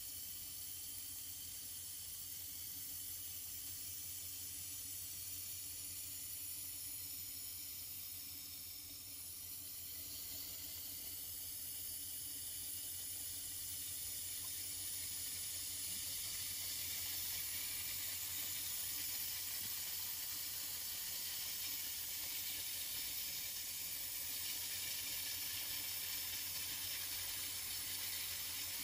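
Automatic fiber laser welding machine seam-welding stainless steel sheet: a steady high hiss over a low steady hum, getting a little louder about halfway through.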